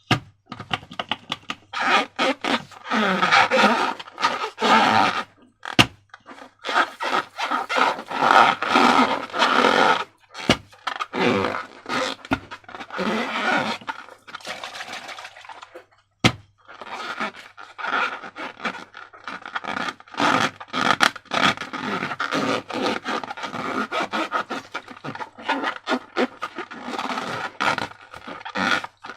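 Slime and balloons being worked by hand: sticky crackling and squishing with scraping, in dense stretches broken by a few short pauses.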